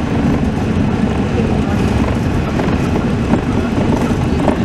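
Walt Disney World monorail running along the beam, heard from inside the car as a steady low rumble.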